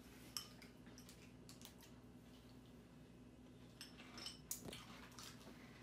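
Faint, scattered clicks and taps of a metal spoon against a ceramic cereal bowl as cereal in milk is stirred and scooped, with a denser run of clicks about four seconds in.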